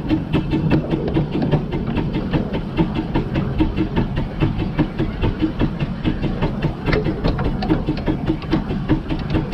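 The 15-inch gauge steam locomotive River Irt under way, its exhaust beating in a steady, even rhythm of about four beats a second.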